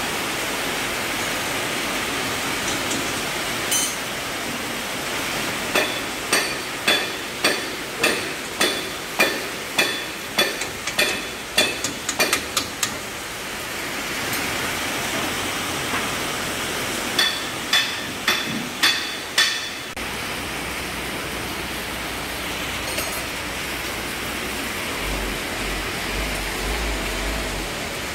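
Heavy rain pouring down in a steady hiss, broken by two runs of sharp, ringing hammer blows on metal. The first run is about a dozen blows, quickening toward its end; the second, a few seconds later, is five blows about half a second apart.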